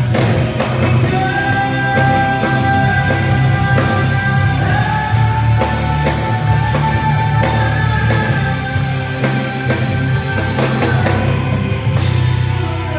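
Live band music: a male singer over drum kit, electric guitar and keyboards, with long held notes.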